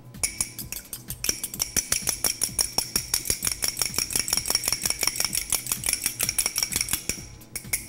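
A fork beating an egg in a small glass bowl: rapid, steady clinking of the tines against the glass. It stops shortly before the end.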